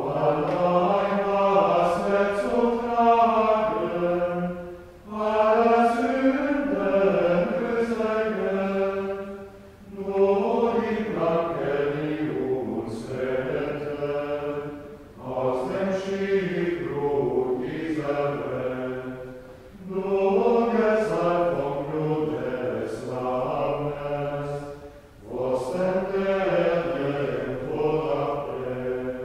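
Unaccompanied plainchant sung by a choir of men's voices: Tenebrae psalmody of the Good Friday night office, in phrases of about five seconds with short breaks for breath between them.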